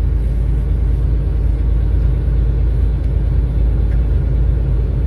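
Steady low rumble of a moving road vehicle, running evenly without any sudden change.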